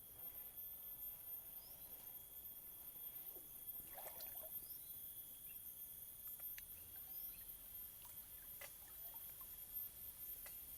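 Faint, steady high-pitched insect chorus of crickets or cicadas, with a few soft clicks and a brief rustle about four seconds in.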